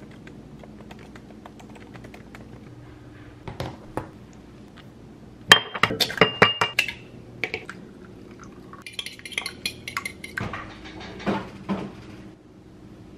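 Kitchen prep sounds: light keyboard tapping, then sharp taps with a ringing ceramic note as an egg is cracked on the rim of a bowl about six seconds in, a brief hiss, and clanks of a frying pan on the stovetop near the end.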